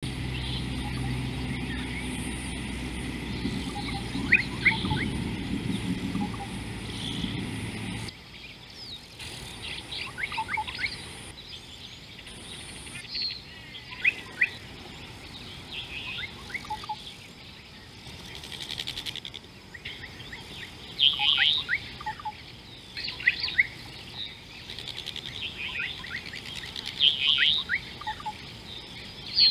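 Birds chirping repeatedly in short calls, several at once, the loudest bursts in the second half. A low steady noise runs under them for the first eight seconds and cuts off suddenly.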